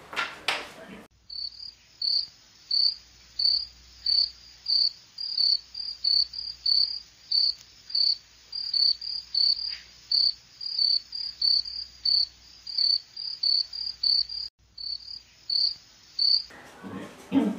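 Cricket chirping sound effect: a high, regular chirp about twice a second that starts and stops abruptly. It is the stock 'crickets' gag for an awkward silence.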